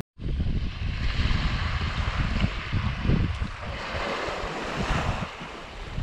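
Sea water and waves washing, with wind buffeting the microphone in gusts, during kayaking on open sea. The sound cuts out for a split second at the very start.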